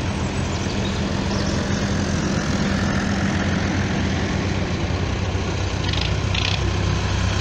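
Tractor engines running as a line of vintage tractors drives past one after another: one engine's hum fades away while a lower, deeper one grows louder toward the end. Two brief high-pitched sounds come about six seconds in.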